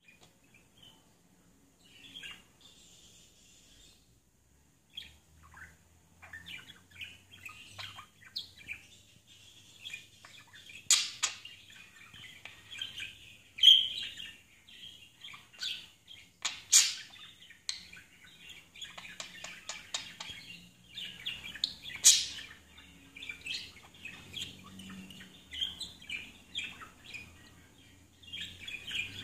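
Budgerigar chirping and chattering softly in a near-continuous stream of quick, short notes, with a few sharper, louder chirps scattered through.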